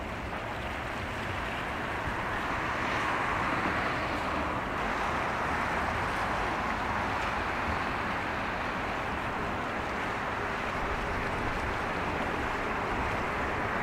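Steady outdoor wash of wind and water, with a low rumble underneath, swelling a little about three seconds in.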